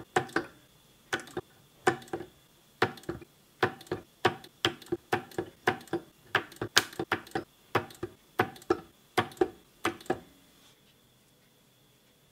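Bench-top pulse spot welder firing, a rapid series of sharp snaps, often in quick pairs, as nickel tabs are welded to the terminals of 18650 lithium cells. The welds stop about ten and a half seconds in.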